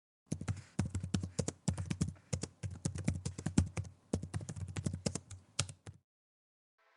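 Typing on a computer keyboard: a quick, irregular run of key clicks lasting about six seconds, then it stops. Just before the end a rising hiss begins.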